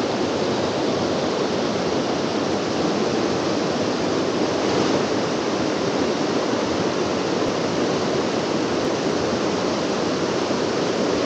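A rain-swollen creek in flood, its water rushing by in a loud, steady wash.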